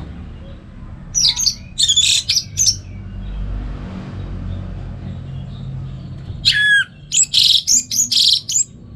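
Orange-headed thrush singing two bursts of loud, rapid song phrases, each about two seconds long, the second opening with a long falling whistle. A steady low hum runs underneath.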